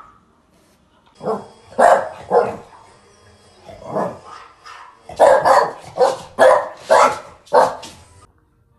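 French bulldog barking, about ten sharp barks in uneven bursts, coming faster in the second half and cutting off shortly before the end.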